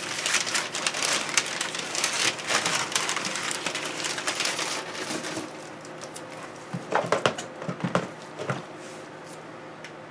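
Packing material in a cardboard box rustling and crinkling as it is handled and pulled out, for about five seconds, followed by a few short handling knocks.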